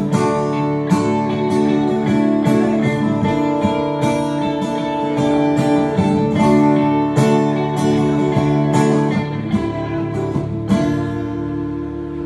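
A live band playing an instrumental song intro, with acoustic and electric guitars strumming chords in an even rhythm. Near the end the strumming stops and a held chord rings on.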